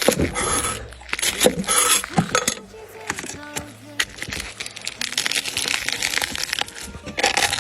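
Fox nut (euryale) seed heads being crushed and squashed open, a run of irregular wet cracks and crunches as the seeds burst out of the pods.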